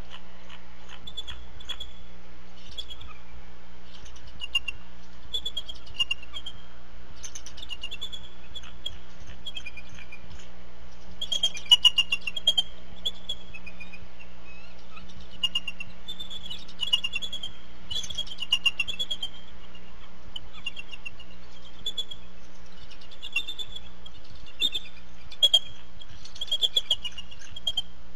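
Bald eagles calling: repeated series of high, short chittering chirps, louder in clusters about halfway through and again near the end, over a steady low electrical hum. The uploader takes the calling for a possible warning call.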